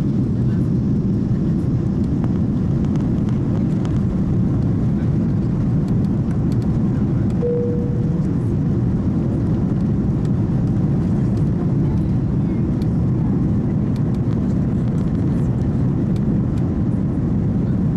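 Cabin noise in an Airbus A330-200 climbing just after liftoff: a steady, loud, low roar of the engines at takeoff power and rushing air. A brief steady tone sounds about eight seconds in.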